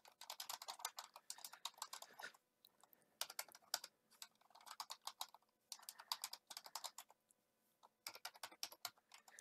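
Typing on a computer keyboard: faint, rapid key clicks in about five short runs with brief pauses between them.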